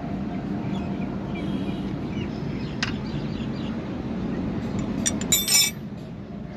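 Metal clinks of a ring spanner and screwdriver on a diesel engine's rocker-arm adjusting screw and lock nut during a tappet clearance adjustment, over a steady low background rumble. One sharp click comes near three seconds in, and a louder cluster of ringing metallic clinks a little after five seconds.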